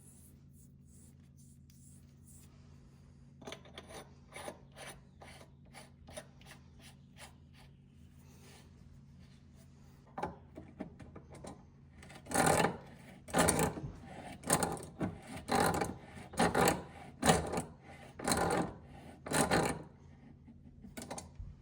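Hand-worked rasping strokes, like filing or scrubbing on a hard part. Faint short strokes come first. In the second half about nine louder strokes follow, roughly one a second.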